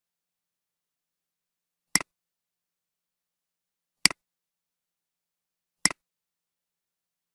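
Three computer mouse clicks about two seconds apart, each a quick double tick of press and release, with dead silence between them.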